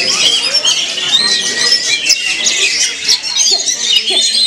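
Oriental magpie-robin (kacer) singing a fast, varied song of whistled and squawky notes. Other birds sing over it at the same time.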